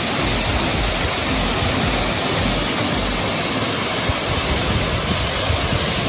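Waterfall pouring down a rock face into a plunge pool: a steady, loud rush of falling water.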